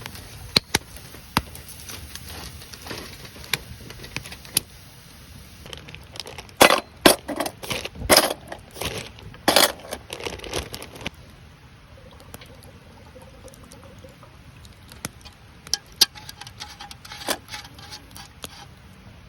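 Scattered clinks and knocks, as of camp utensils and cookware being handled, with a burst of louder clattering in the middle.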